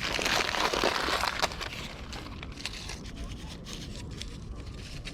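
Small wood campfire crackling with sharp pops and snaps, after a loud rush of noise in the first second and a half.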